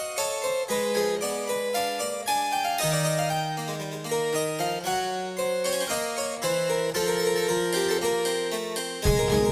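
Instrumental music: a keyboard plays a quick run of notes over held low notes, then the full band comes in much louder near the end.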